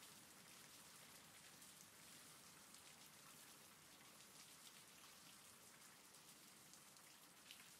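Faint recorded rain: an even hiss of rainfall with scattered soft drop ticks.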